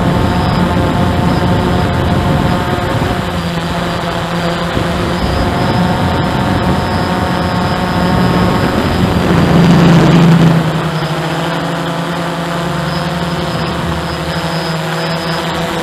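Hubsan 109 quadcopter's electric motors and propellers humming steadily, heard close up from the drone's own camera. The hum swells louder for about a second two-thirds of the way through, then settles back a little quieter.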